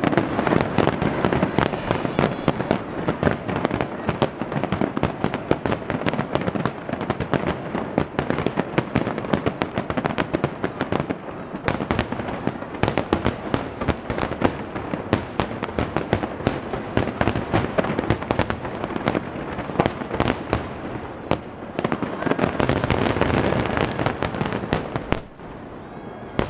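A dense barrage of aerial firework shells bursting over one another: a continuous run of sharp bangs over thick crackling. The crackle swells near the end, then the din drops sharply about a second before the end.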